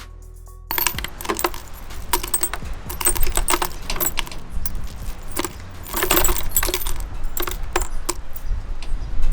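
Small loose metal parts clinking and jangling against each other in quick, irregular clicks, over a low background rumble.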